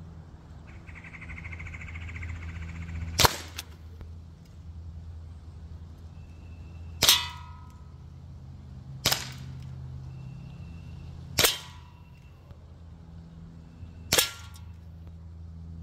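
Umarex Glock 17 Gen3 CO2 blowback BB pistol firing single shots, five spaced about two seconds apart, several followed by a short metallic ring as BBs strike the metal cans.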